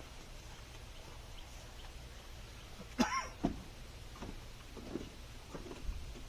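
A single short vocal sound, arched in pitch, about three seconds in, followed by a knock, over a low steady hum.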